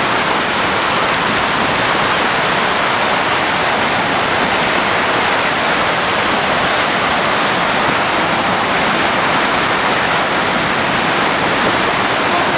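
Loud, steady rush of river water pouring through an open dam gate into a churning outflow among broken ice floes, during release of ice downstream.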